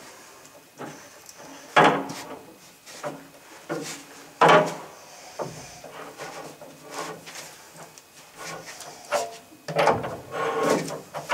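Socket and bar knocking and scraping against a new water heater anode rod's hex plug as it is worked into the threads on top of the tank: two sharp knocks, then lighter clicks and rubbing, busier near the end.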